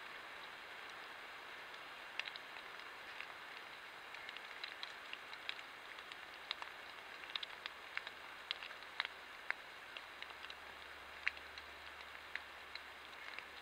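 Steady hiss from a trail camera's microphone, with scattered faint ticks and crackles at irregular intervals.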